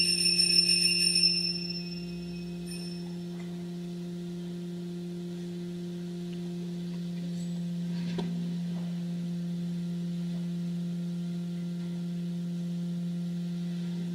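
Small altar bells ringing as the monstrance is held up in benediction, stopping about a second and a half in. Under them, and after, a steady low held note with its overtones drones on unchanged, with one faint click about eight seconds in.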